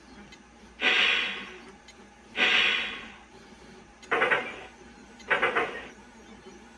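Recorded sound effects from a Lionel Vision Line New York Central baggage car's onboard speaker: four separate bursts. The first two are about a second long, hissing and fading out. The last two are shorter, with a fast rattle.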